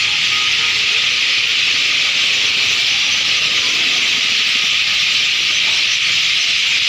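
Dense, steady chirping of thousands of birds crowded into one tree, so many calls at once that they merge into a loud, even, high-pitched din.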